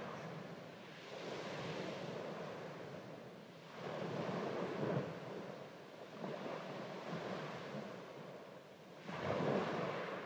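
Small waves washing in over shallow water on a sandy shore, surging every two to three seconds.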